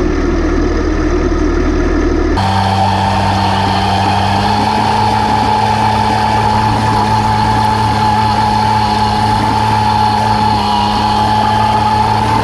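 An engine running steadily. About two seconds in the sound cuts abruptly to another steady engine drone with a higher, whining tone.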